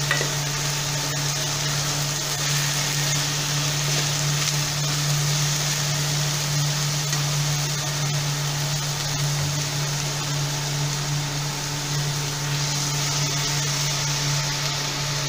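Chopped onion with onion and ginger-garlic-chili paste sizzling steadily as it fries in mustard oil in a pan, stirred with a steel ladle, cooking down until translucent. A steady low hum runs underneath.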